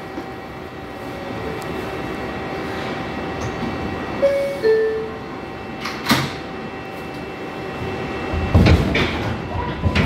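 Two-note descending door chime of an R142A subway car. About a second and a half later the sliding doors close with a thud. Near the end the train starts to pull away with a low rumble and a rising motor whine.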